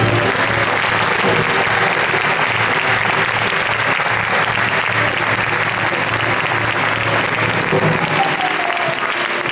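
Audience applauding loudly, starting as the band's music ends. Faint music comes back in near the end.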